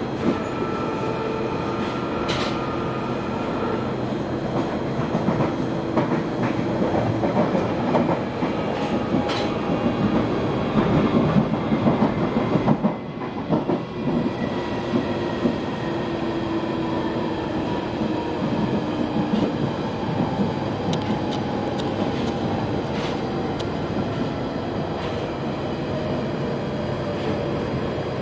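London Underground 1995 Stock train running along open track: a steady rumble of wheels on rail with scattered clicks over rail joints, and a faint motor whine that slowly falls in pitch through the second half.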